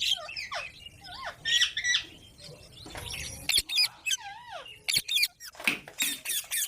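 A pet green parrot calling in a run of short squawks whose pitch swoops downward, with a few sharp clicks between them.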